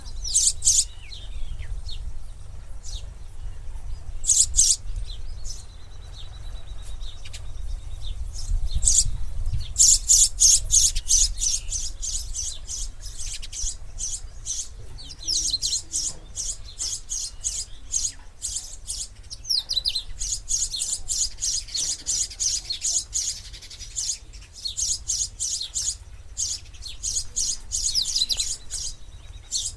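Sparrows chirping: short high chirps, scattered singly at first, then in fast runs of many chirps from about ten seconds in and again from about twenty seconds in, over a low steady rumble.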